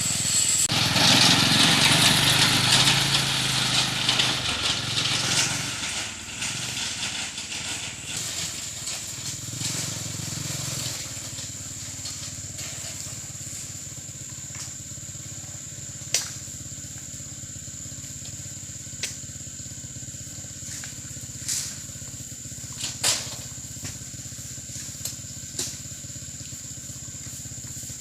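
Small engine of a grakula oil palm hauling machine running, loudest for the first several seconds and then settling to a steadier, quieter running, with a few sharp knocks in the second half.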